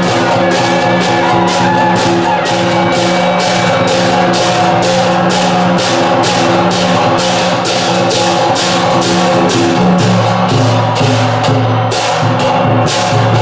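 Temple procession music: drums and cymbals struck about twice a second under held melodic notes, with the pitch of the held notes dropping about ten seconds in.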